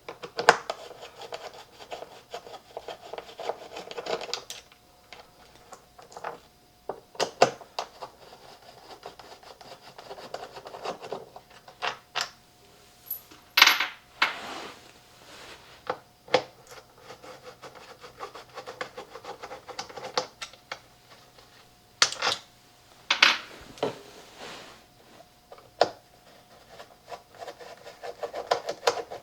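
Hands working on loudspeaker parts during disassembly and cleaning: stretches of scraping and rubbing with many sharp, irregular clicks and clinks of small hard parts, the loudest a cluster of knocks about midway.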